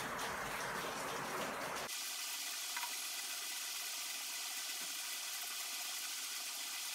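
Steady hiss of background noise. About two seconds in, the deep part drops away abruptly, leaving a thinner, higher hiss.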